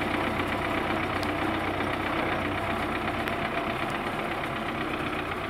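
Wheeled farm tractor's diesel engine running steadily as the tractor drives away along a dirt track.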